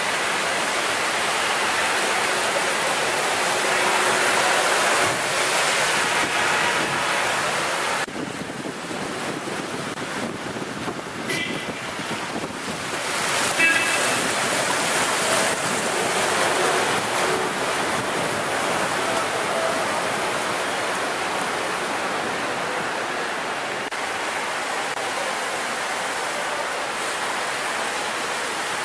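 Cars driving through a flooded street, tyres splashing through deep standing water, under steady wind noise on the microphone. The noise drops suddenly about eight seconds in and builds again a few seconds later.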